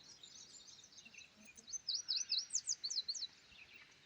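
Songbirds chirping, with one bird singing a fast run of high, sweeping notes for about a second and a half starting near two seconds in.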